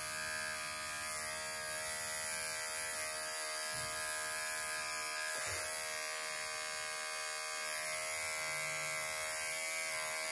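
Andis Pulse Li 5 cordless dog clipper with a 40 blade running with a steady buzz as it trims the hair on a dog's paw down to the pads.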